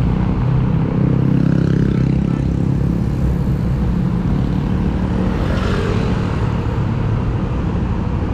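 Motorcycle engine running amid road traffic, a steady low engine sound that grows louder for a couple of seconds about a second in.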